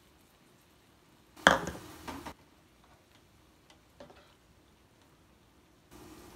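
A sharp knock about a second and a half in, with a smaller one just after, then light clicks and scrapes of a plastic spatula stirring peppers and water in a frying pan. A low steady hum comes in near the end.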